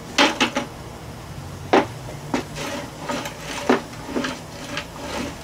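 Irregular wooden knocks and clunks as a loose wooden board is pressed down and stood on across the base frame of a homemade wooden cart.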